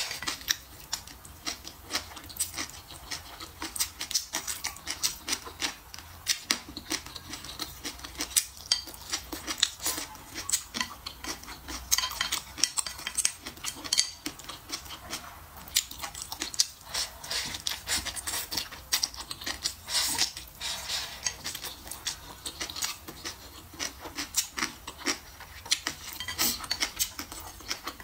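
Close-up eating sounds: chewing of mouthfuls of food, with wooden chopsticks clicking and scraping against a ceramic plate, many small irregular clicks throughout.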